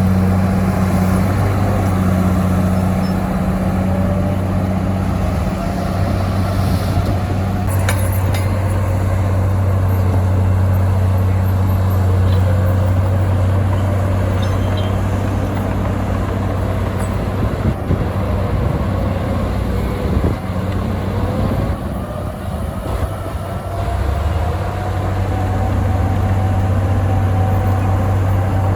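Heavy diesel earthmoving machinery (bulldozer and dump trucks) running steadily with a low engine drone. A whine rises slowly in pitch over the last several seconds.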